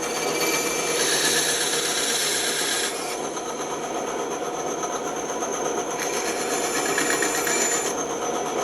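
Bandsaw running, with its blade cutting through wood: the hissing cut comes up about a second in and again about six seconds in, over the steady running of the saw.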